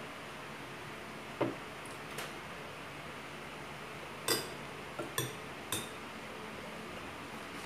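Metal spoon clinking against a small glass bowl as rice is scooped up, about six short clinks, the loudest about four seconds in, over a faint steady hiss.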